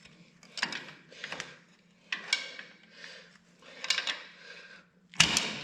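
Metal tools scraping and clanking on a tractor's hydraulic pump in four short bursts, about a second apart, as large pliers and a pry bar work at a stuck O-ring-sealed part; a much louder sudden clank comes near the end.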